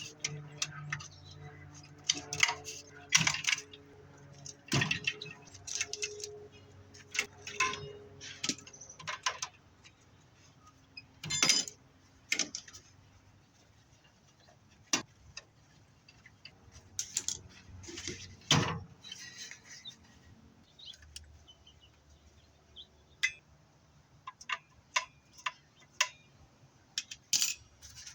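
Irregular metallic clinks, clanks and rattles of a furnace being dismantled by hand: tools and sheet-metal parts knocking together, with a few louder knocks scattered through.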